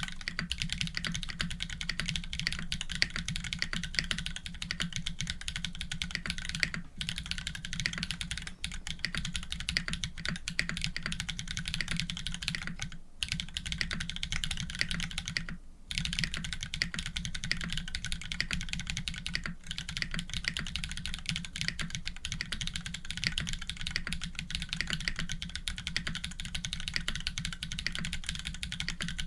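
Fast, continuous typing on a custom mechanical keyboard (Orion v2.5) with Holy Panda tactile switches fitted with TX films, GMK Monochrome keycaps on an FR4 plate, with a dense run of key clacks and two short pauses about halfway through.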